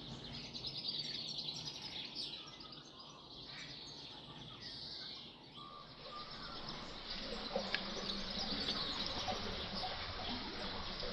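Small birds chirping and trilling over a steady outdoor background hiss; the background grows fuller and louder about seven seconds in.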